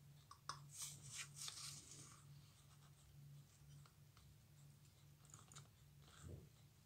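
Very quiet handling: steel tweezers click and scrape lightly against a watch dial and its movement holder while the dial is being prised off. The clicks cluster in the first two seconds, with a few fainter ticks later, over a low steady hum.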